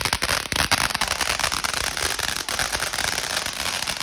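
Small firework crackling: a dense, rapid run of sharp pops and crackles without a break, like a string of firecrackers or a crackling fountain going off.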